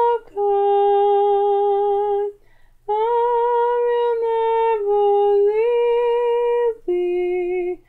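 A woman humming a slow hymn melody unaccompanied, in long, steady held notes with short breaks between them.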